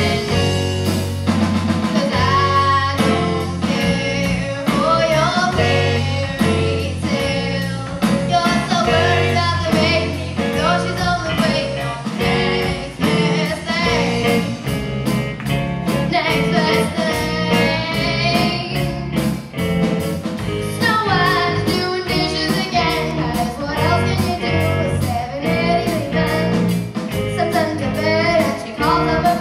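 Live rock band: a girl singing lead over electric guitar, electric bass and a drum kit.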